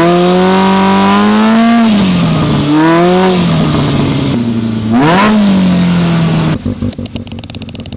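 Polaris RZR side-by-side engine being revved in three blips, the pitch climbing and falling back to a steady run after each, the last rise the quickest. It then cuts off into a rapid, irregular run of sharp clicks.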